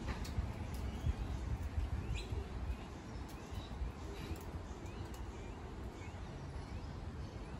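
Faint, short rising chirps of small birds, scattered about one a second, over a low, uneven rumble.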